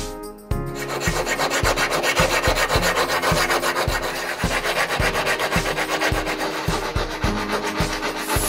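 Flat hand file rasping along the edge of a small steel blade in repeated strokes, starting about half a second in.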